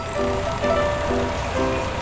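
Background music: a bright melody of short held notes over a steady low rumble.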